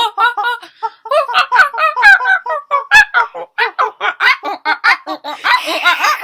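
People laughing hard: a fast run of high-pitched ha-ha bursts, several a second, turning breathier near the end.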